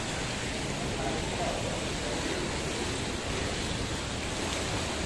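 Steady rush of churning water in a jacuzzi pool, with faint voices underneath.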